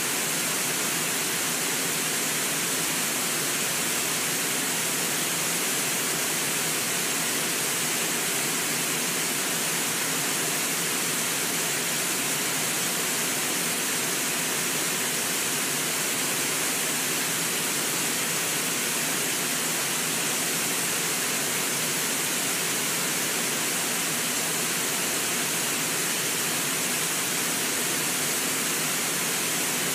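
Steady rushing of white water pouring over a low river waterfall, even and unbroken throughout.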